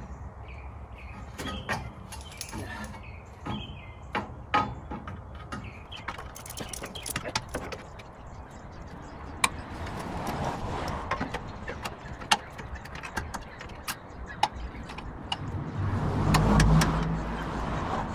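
Scattered metallic clinks and knocks of steel clamps and brackets being fitted to a car's bumper extender bars. A passing car rises and fades about ten seconds in and again, loudest, near the end.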